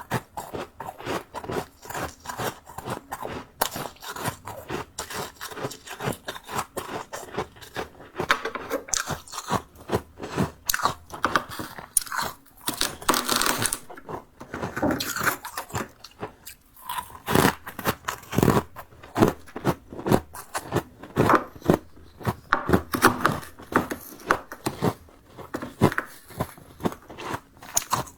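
Freezer frost being bitten and chewed close to the microphone: a rapid run of crisp crunches, several a second, with a longer stretch of continuous crunching about halfway through.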